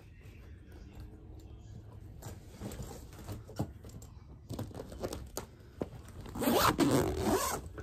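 Zipper on a soft-sided fabric suitcase being tugged in short scrapes and clicks as it fails to close, then a louder, longer run of the zip about six and a half seconds in.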